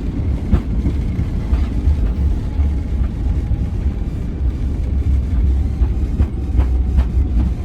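Airbus A319 rolling out on the runway just after touchdown, heard inside the cabin: a loud, steady low rumble from the wheels and airframe with scattered knocks and rattles.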